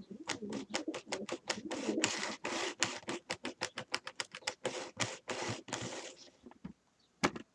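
Model train locomotive running on the layout track, a fast, uneven run of clicks and rattles from its wheels and mechanism that dies away about six seconds in. It is running poorly on the layout, though it ran perfectly on the workbench test track.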